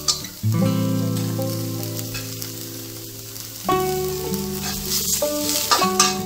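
Background instrumental music: a held chord slowly fading, with new notes entering about two-thirds of the way through. Under it, diced shiitake mushrooms and pickled shallots sizzle as they stir-fry in oil in a pan, with a spatula scraping and clicking near the end.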